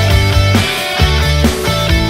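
Background rock music with electric guitar and a driving bass line.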